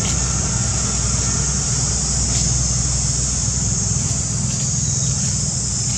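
Steady outdoor background noise: a low rumble under a high, even hiss, with no distinct events.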